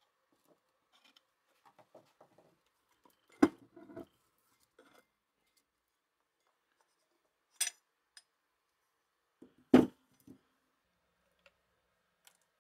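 Scattered metal knocks and clinks as an old bench grinder's electric motor housing is pried apart with a screwdriver and its end cover and rotor are handled. Two heavy knocks stand out, about three and a half and ten seconds in, with a sharp clink between them.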